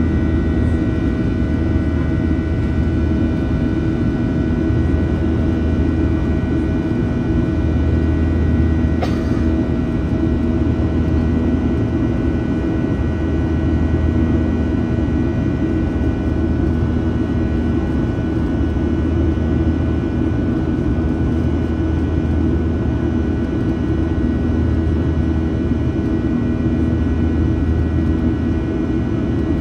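Boeing 737-800's CFM56 jet engines heard from inside the passenger cabin: a steady drone with several steady whining tones over a low rumble, holding constant throughout. A faint click about nine seconds in.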